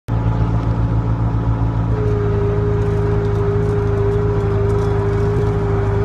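Skid steer engine running steadily. About two seconds in, a steady hydraulic whine joins it and holds: the small hydraulic winch running, pulling a red oak log.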